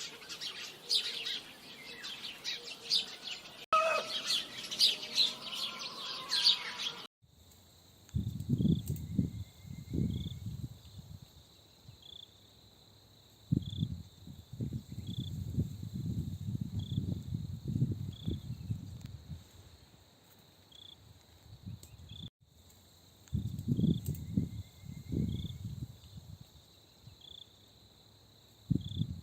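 Small birds chirping busily for about seven seconds. Then, after an abrupt cut, a low-pitched animal vocalising in bouts of a few seconds each, over a faint steady high hum.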